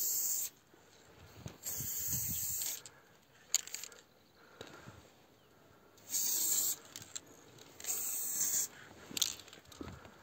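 Aerosol spray paint can spraying in short hissing bursts, four in all, each about a second long. Small clicks and taps come between the bursts.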